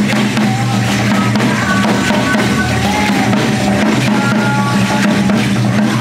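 Drum beaten with sticks, a steady dance beat.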